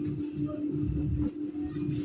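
Background music with a held low note over a pulsing bass beat.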